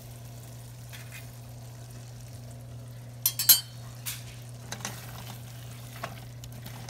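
Chicken curry simmering and sizzling in a nonstick frying pan over a steady low hum, with a few sharp loud clinks about three and a half seconds in and lighter knocks after, as a silicone spatula starts stirring the chicken against the pan.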